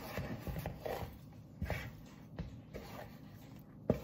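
Wooden spoon stirring down sticky yeast bread dough in a bowl: irregular soft knocks and scrapes of the spoon against the bowl, with a sharper knock at the start and another near the end.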